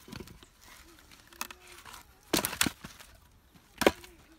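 Axe splitting firewood, a few sharp woody cracks and knocks: two close together a little past halfway, then another single crack about a second later.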